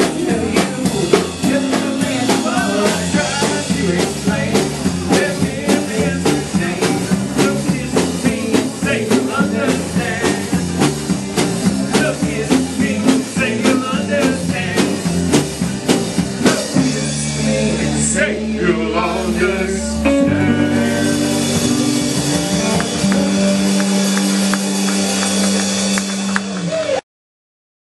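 Blues-rock song with guitar, drums and a singing voice. It closes on long held chords and cuts off abruptly to silence near the end.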